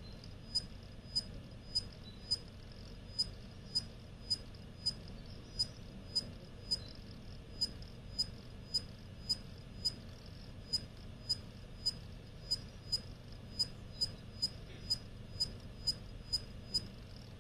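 Western Digital Purple 8TB (WD84PURZ) hard drive writing data: short, sharp, metallic high-pitched chirps repeat about twice a second over the drive's steady low hum. The drive passes its SMART checks with no errors, and its owner is unsure whether the noise is normal.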